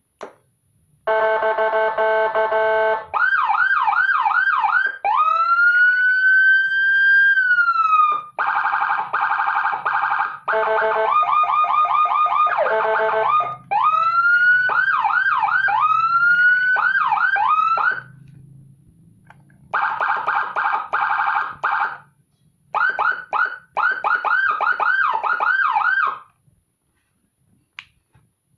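Electronic siren module with Whelen Gamma/G2 tones, switching between patterns: a steady buzzy horn blast, fast yelp sweeps, a single slow rising wail, and another steady tone mixed with horn blasts, with short gaps between them. The siren stops about three seconds before the end, and a few faint ticks follow.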